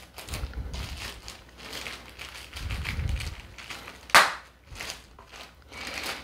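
A clear plastic bag crinkling and rustling as a hand pulls it open around a bookshelf speaker, with one sharp crackle about four seconds in.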